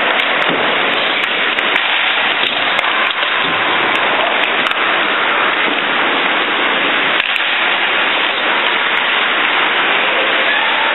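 Steady, loud hiss of indoor ice-rink noise, with scattered sharp clicks.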